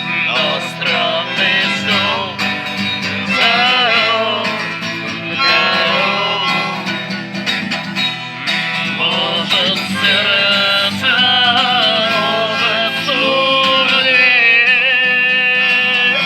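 Acoustic guitar playing a bard song, with a voice singing a melody line over it; some notes are held with vibrato near the end.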